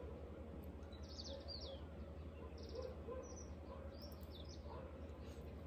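Birds calling outdoors: short high trilled chirps repeating every second or two, mixed with shorter lower calls, over a steady low background hum.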